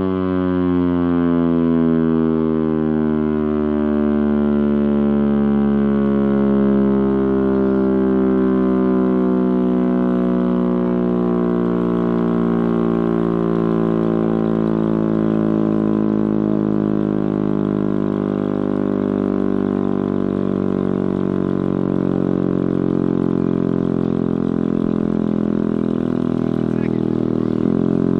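Chrysler Bell Victory air raid siren, driven by its Chrysler Hemi V8 engine, sounding a loud, deep, continuous drone with a low engine rumble beneath it. Its pitch slides down gradually over the first dozen seconds or so, then holds steady.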